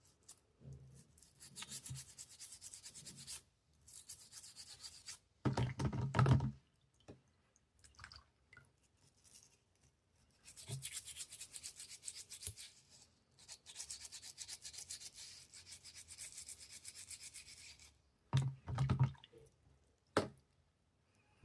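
Quick back-and-forth scrubbing strokes on the knife, in two long runs, as it is cleaned. A few louder handling bumps fall between the runs.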